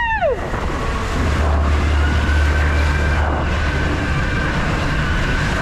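Rushing water and a heavy low rumble as a racing mat slides at speed through an enclosed water-slide tube, with wind on the microphone. A short falling whoop from the rider trails off at the very start.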